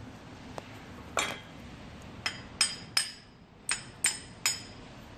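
A hammer tapping on metal, about seven sharp strikes that ring briefly, unevenly spaced and bunched in the second half. The strikes fall on an aftermarket camber-kit upper control arm that is being worked into line.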